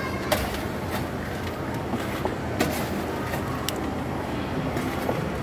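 Steady background noise with a few light clicks and scrapes of a metal scoop working through French fries in a stainless-steel tray.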